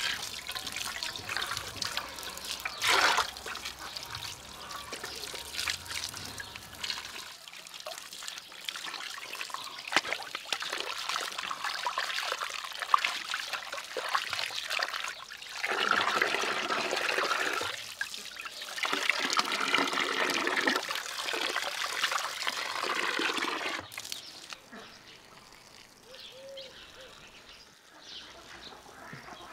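Water poured from a ladle into an aluminium basin, splashing and sloshing as a large beluga fish head is rinsed by hand and lifted out dripping. The splashing stops about four-fifths of the way through, leaving only faint outdoor background.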